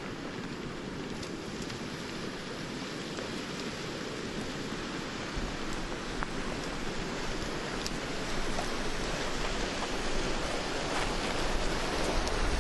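Flash flood front coming down a dry wash: a steady rushing noise of water and debris that grows gradually louder, with a few faint scattered clicks.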